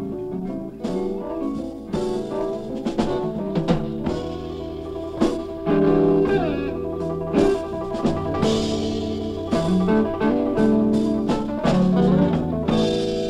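Live band music: electric guitars, bass and drums playing a blues.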